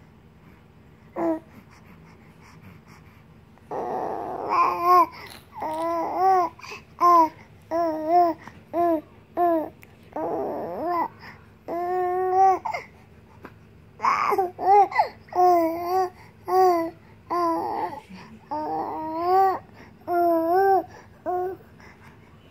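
Three-month-old baby cooing and babbling: one short coo about a second in, then from about four seconds a long run of short coos, some rising and falling in pitch, like a baby telling a story.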